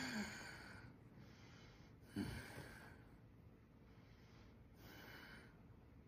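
A sleeping man's breathing: the tail of a loud groaning snort fades out at the start, a short snort comes about two seconds in, and a faint breath out follows near the end.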